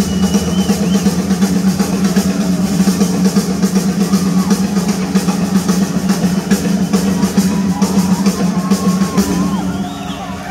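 Live rock drum solo on a full drum kit, heard at concert volume from the audience: fast, continuous rolls on the drums, with a few whistles from the crowd over it.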